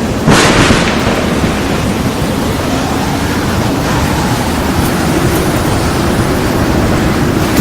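Heavy rain, a steady loud hiss. A sudden loud burst of rushing noise about a third of a second in fades within half a second.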